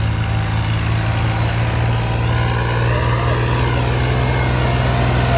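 Tractor diesel engine running steadily under load, slowly getting louder, while the tractor is stuck in deep mud with its rear wheels churning.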